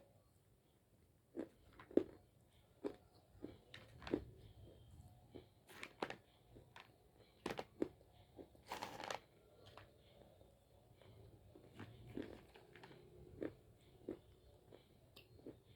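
Hyderabadi white khadi (edible white clay) being bitten and chewed in short, sharp crunches at irregular intervals. About nine seconds in comes one longer, grittier crunch.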